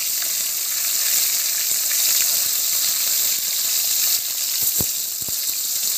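Turmeric-and-salt-coated rohu fish pieces sizzling as they go into hot mustard oil in a steel kadai: a steady high hiss with small crackles. Two light knocks about five seconds in.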